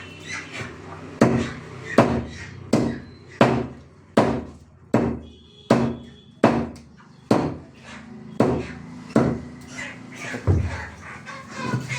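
A cleaver chopping through chicken on a chopping block: about a dozen heavy strikes at a steady pace, roughly one every three-quarters of a second.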